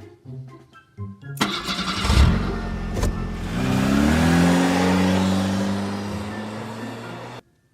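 Car engine sound effect. The engine starts about two seconds in, revs up and then holds a steady run, and cuts off suddenly near the end. Light plucked music plays briefly before it.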